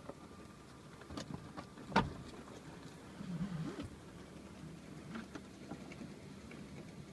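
Seat belt hardware of a Subaru Forester's centre rear seat belt being handled: several sharp clicks, the loudest about two seconds in, with a short rubbing sound a little after.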